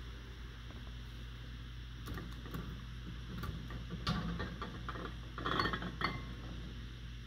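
Glass canning jars clinking and knocking against each other and the enamel water-bath canner as a jar of ketchup is handled with a jar lifter. There are a few separate sharp clinks, the loudest about four and six seconds in, over a steady low hum.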